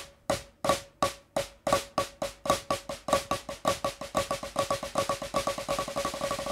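Snare drum played in Swiss Army flam triplets, a flammed right, another right and a left, repeated over and over. The strokes start slow and speed up steadily into a fast, even roll.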